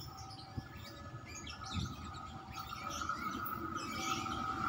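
Small birds chirping, while the rumble and a steady high hum of an approaching CC 201 diesel-electric locomotive grow louder over the second half.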